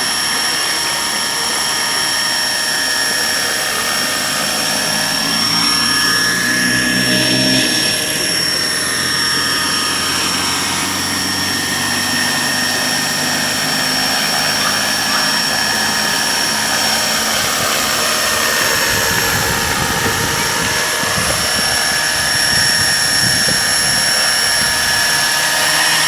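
Electric 450-size RC helicopter flying, a steady high motor and gear whine over rotor blade noise. Its tone sweeps as it passes by, once about six seconds in and again near twenty seconds.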